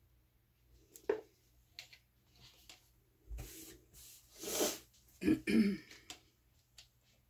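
A person clearing their throat, two rough rasps about five seconds in, after a short breathy rush just before. A light click comes about a second in.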